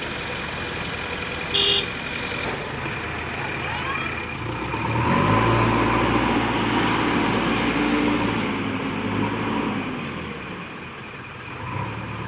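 A backhoe loader's diesel engine runs steadily, then works harder and louder for several seconds from about five seconds in before easing back, as when the boom and bucket are under load. There is a short sharp knock near the start.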